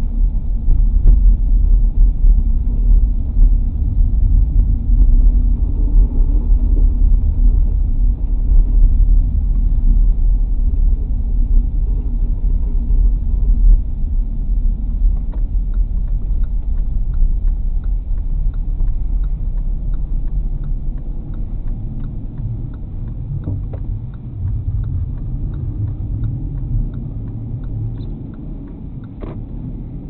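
Car's low, steady road and engine rumble heard from inside the cabin while driving on a snow-covered road, easing off over the last third as the car slows.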